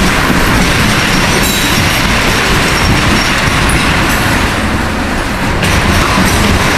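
Freight train's ethanol tank cars rolling past, steel wheels running steadily on the rails, with a faint wheel squeal.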